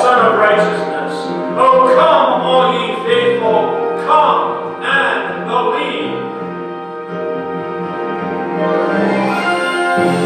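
Mixed choir of men's and women's voices singing; short sung phrases in the first half give way to long held chords in the second.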